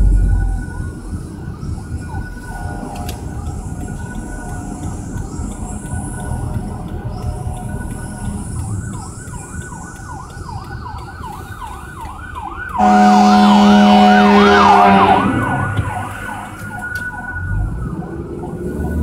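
Fire truck siren sweeping up and down, slow at first, then switching to a fast yelp about halfway through. About two-thirds in, a loud air horn blasts for roughly two seconds over the yelp. Heard from inside a moving car over low road rumble.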